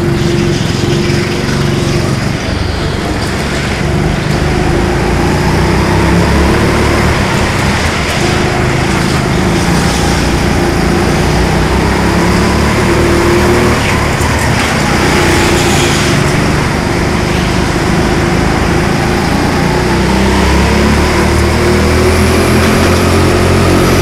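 Go-kart's small four-stroke petrol engine running hard, heard from on board the kart, its pitch rising and falling with the throttle through the corners.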